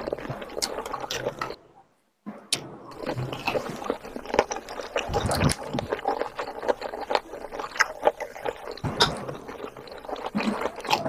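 Close-up eating sounds: wet chewing and lip smacking of chicken curry and rice, with squelching as gravy-soaked rice is worked by hand. The sound cuts out briefly about two seconds in.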